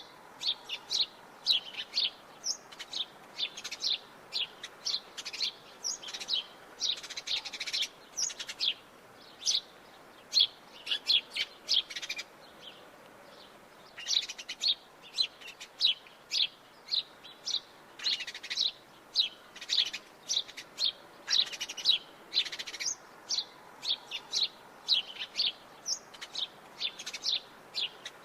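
House sparrows chirping: a rapid series of short, sharp chirps, two or three a second, with a brief pause about halfway through.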